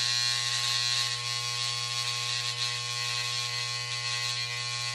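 Corded electric hair trimmer running with a steady buzz as it edges a hairline.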